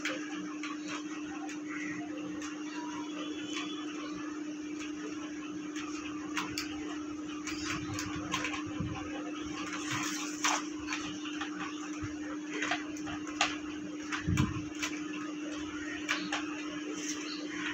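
Irregular clicks and knocks of a white plastic kitchen rack as its frames and basket trays are handled and fitted together, over a steady low hum.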